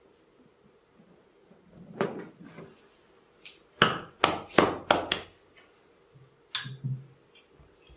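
Percussive massage strikes landing on the body as sharp knocks: one about two seconds in, a quick run of five in the middle, and two more near the end.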